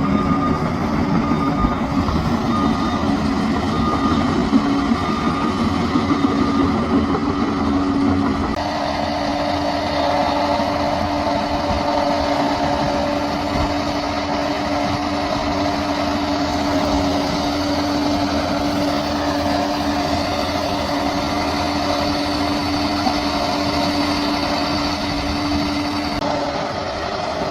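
Heavy diesel engine of a bulldozer running steadily under work. Its note changes abruptly about eight seconds in, settling on a slightly higher steady tone.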